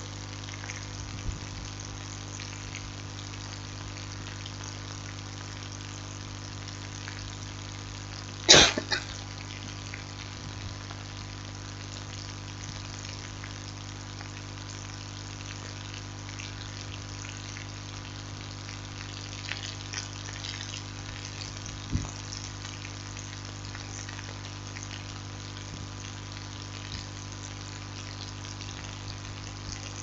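Steady hiss with a low electrical hum from the recording. It is broken by one short, loud noise about eight and a half seconds in and a fainter click about twenty-two seconds in.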